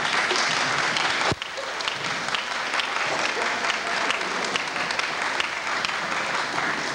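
Audience clapping and applauding steadily, with one sharp click about a second in.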